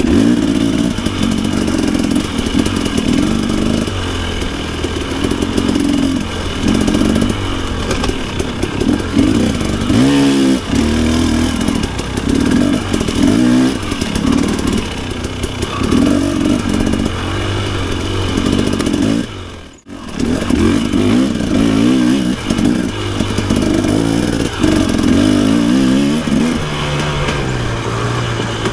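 Off-road dirt bike engine ridden hard on a wooded hare scramble trail, its pitch rising and falling as the throttle is worked. There is a brief sharp cut-out about two-thirds of the way through.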